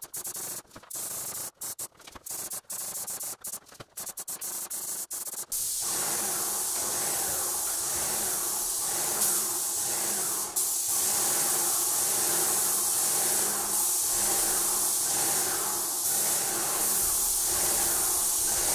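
Airless paint sprayer spraying primer, a loud high hiss. For the first five seconds or so it comes in short broken bursts, then it runs steadily with a regular pulse beneath it.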